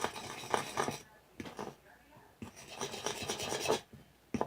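A fork stirring and scraping through thick clear glue in a bowl, in several short rasping strokes with brief pauses between them.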